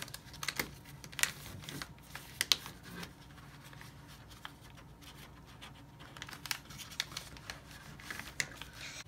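A sheet of printer paper being handled and refolded into an origami boat: irregular paper crinkles and crisp ticks as the folded sides are pulled out, the sharpest about one and two and a half seconds in.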